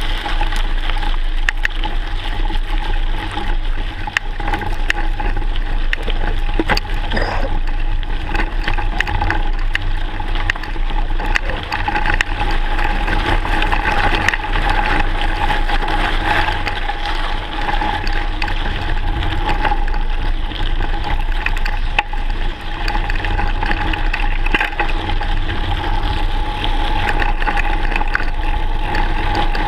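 A mountain bike riding over a rough gravel track, recorded from a camera mounted on the bike: a steady, loud rush of tyre noise, rattle and wind with many small clicks and knocks from stones and the bike's parts.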